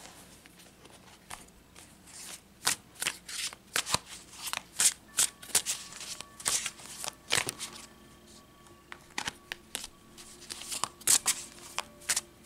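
Tarot cards being shuffled and handled: a quick run of irregular papery slaps and flicks, then a second flurry near the end.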